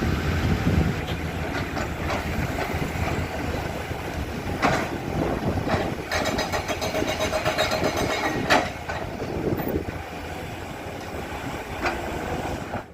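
Komatsu hydraulic excavator's diesel engine running under load while loading waste rock into a dump truck, with a few sharp knocks of rock and steel and a whine for about two seconds midway. It cuts off suddenly at the end.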